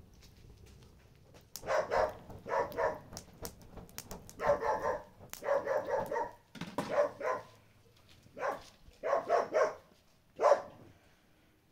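A dog barking repeatedly in short runs of two or three barks, starting about a second and a half in.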